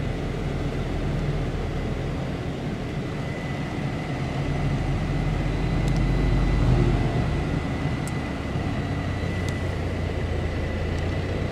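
UAZ Patriot on the move, heard from inside the cabin: steady engine and road rumble, with the engine note settling lower about two-thirds of the way through.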